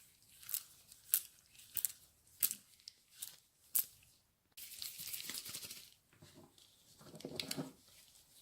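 Close-miked ASMR handling sounds: sharp, crisp clicks about twice a second for the first four seconds, then a second-long hiss and a short grainy crunch near the end.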